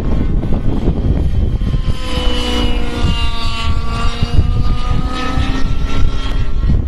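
Wind rumbling on the microphone, with the rotor and motor whine of an Align T-Rex 700 radio-controlled helicopter coming in about two seconds in. The whine sinks slightly in pitch, then fades near the end.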